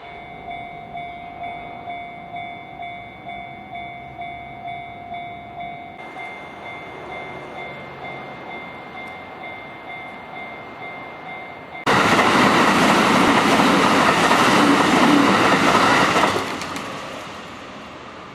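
Japanese level-crossing warning bell clanging about twice a second. About 12 s in, an electric train bursts past the crossing, loud for about four seconds before it fades away.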